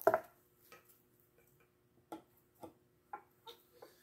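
A sharp knock, then light irregular clicks about every half second, as nuts on threaded clamping rods are tightened by hand with a tool rather than the cordless drill.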